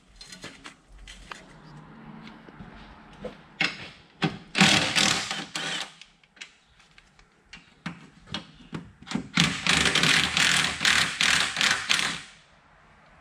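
Cordless impact wrench hammering bolts loose from a truck's fender and cowl brackets, in two bursts of two to three seconds each, a few seconds apart. A few lighter clicks come before them.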